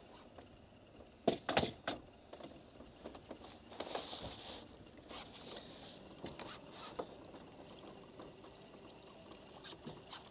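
Knocks and clatter against the boat, loudest about a second and a half in, with brief splashes of water as a fish is netted and lifted aboard.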